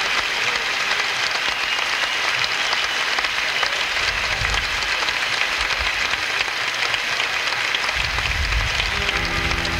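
Large stadium crowd applauding and cheering, a dense steady clatter of claps, with low thuds from about four seconds in. Steady musical notes from the band begin just before the end.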